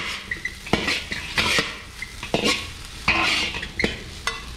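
Two metal utensils, a wok spatula and a ladle, scraping and clanking against a wok as rice and egg are stir-fried, in an irregular run of strokes about two a second. Oil sizzles under the rice between the strokes.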